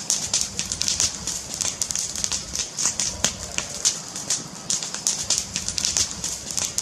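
Fire crackling in a fireplace: a dense, irregular run of small pops and snaps over a steady hiss.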